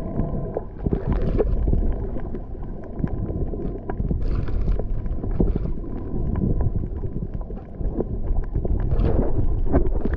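Underwater ambience picked up by a camera submerged on a coral reef: a muffled low rumble of moving water with many scattered small clicks and crackles, and a faint steady tone running under it.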